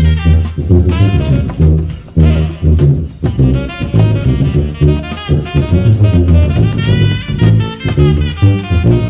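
Sousaphone playing a rhythmic bass line of short, punchy low notes, over a big-band backing track with a horn section and drum kit.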